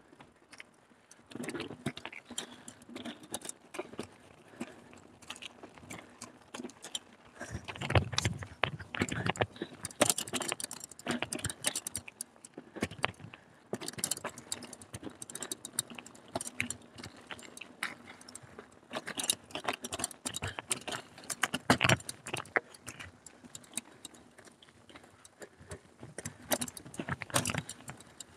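Carrera Hellcat mountain bike rattling and jangling over a rough cross-country trail: a constant irregular clatter, with louder clusters of knocks every few seconds as it hits bumps.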